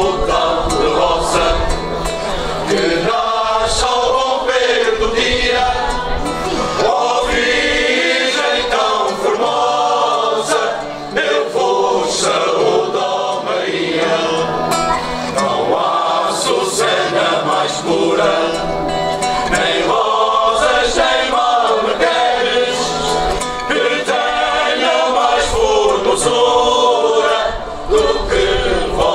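Amateur choir, mostly men's voices joined by two girls, singing a song in unison, accompanied by guitar.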